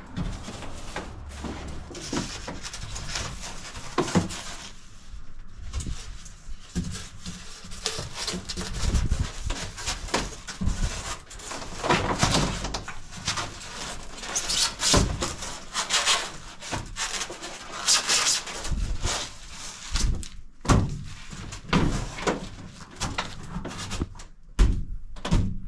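Laminated expanded-foam insulation boards (R-Tech Insulfoam), grooved so they bend, being handled and pressed into a school bus's curved metal ceiling: irregular rubbing and scraping of the foam, with scattered knocks against the metal.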